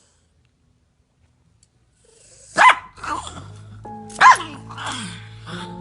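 A dog barking twice, two loud sharp barks about a second and a half apart with smaller yelps between them, after a couple of seconds of near silence; music with sustained notes comes in under the second bark.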